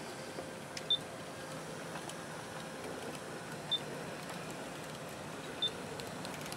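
G-scale model train with F3 diesel locomotives running slowly along the track: a steady, fairly quiet running noise from motors and wheels, broken by a few short high chirps.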